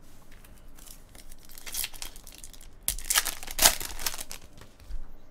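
Foil wrapper of a Bowman's Best trading card pack crinkling and tearing as it is ripped open. The rustling comes in two louder stretches, about two seconds in and again from about three to four seconds in.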